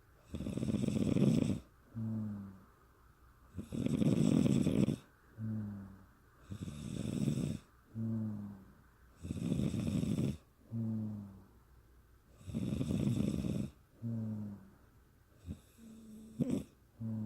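A woman snoring in a slow, regular rhythm, a breath cycle about every three seconds: a rough, noisy snore lasting about a second, then a shorter, lower humming tone that falls slightly in pitch. Five or six cycles; near the end the rhythm breaks into a few short, irregular catches.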